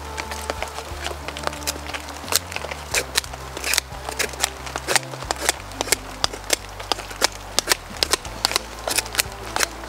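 Wood fire crackling, with irregular sharp pops several times a second.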